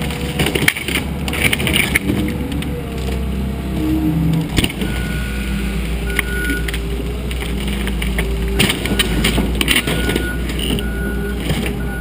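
Wheel loader's diesel engine running under load as its bucket crushes a wooden barn wall, with clusters of cracking and splintering wood near the start and again after about eight seconds. From about halfway through, a backup alarm beeps steadily.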